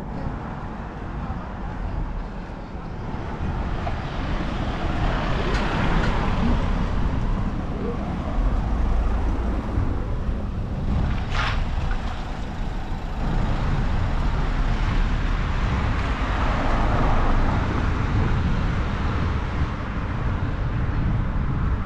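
Car traffic on a narrow street: tyre and engine noise swelling as a car passes about five seconds in and again near the end, over a steady low rumble, with one brief sharp sound about halfway through.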